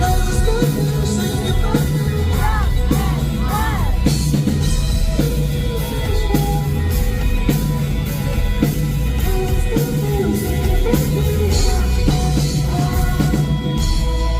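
Live rock band playing with a drum kit and bass keeping a steady beat, and a singer's voice over it.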